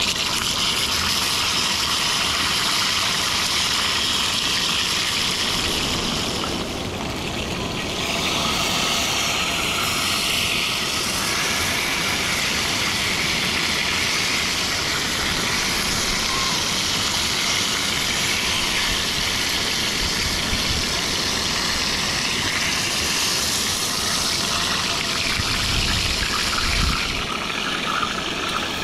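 Fish frying and sizzling in oil in a cast-iron skillet, against the steady rush of a river. The sound is an even, continuous hiss.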